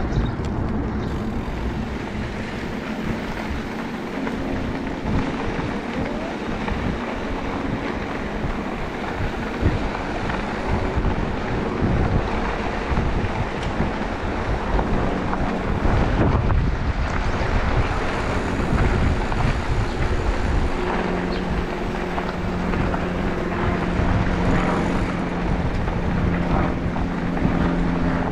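Wind buffeting the microphone over the rolling and rattling of an e-bike being ridden. A steady low hum joins about two-thirds of the way through.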